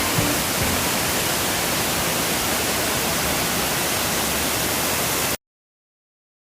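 Waterfall rushing as a steady, even roar of falling water, cutting off abruptly about five seconds in.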